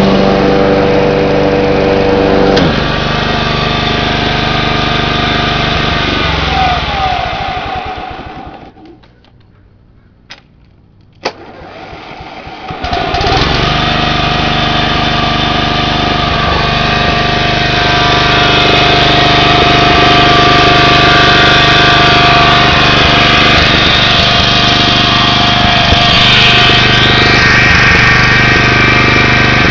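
John Deere 14SE walk-behind mower engine running, then winding down to a stop a few seconds in. After a few seconds of quiet and a couple of sharp clicks, the electric starter brings it back and it catches and runs steadily again.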